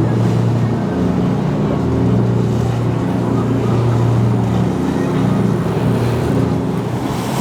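Motorboat engine running steadily with a low hum.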